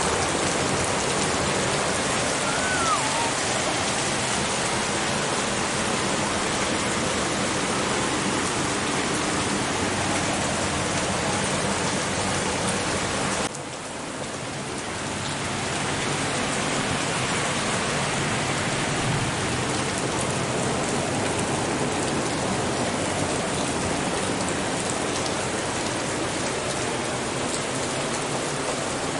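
Heavy rain falling steadily in a storm. About halfway through it suddenly drops quieter, then swells back up over a couple of seconds.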